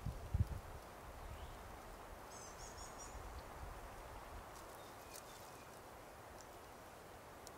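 Quiet woodland ambience with a faint steady hiss. A small bird gives a short run of high chirps about two and a half seconds in. A couple of low thumps come near the start.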